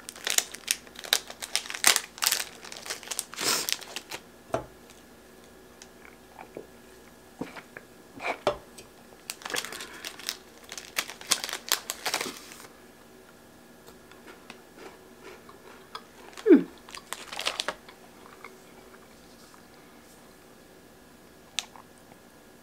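Plastic snack wrapper crinkling as a bag of Pocky sticks is opened and handled, in dense crackly bursts for the first few seconds and again in short bursts through the middle. About two-thirds of the way in there is one short falling sound, the loudest moment, and the last few seconds are quiet.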